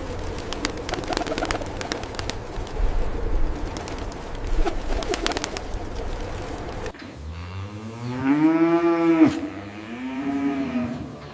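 Cow mooing: two long calls that rise and then fall in pitch, the first louder, starting about seven seconds in. Before that there is a noisy clatter of clicks with a few soft low calls.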